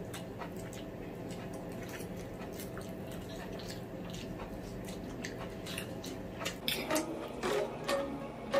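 Eating sounds: metal forks clicking and scraping on glass plates while instant noodles are slurped and chewed, a run of small sharp clicks over a faint steady hum. The sounds grow louder and busier near the end.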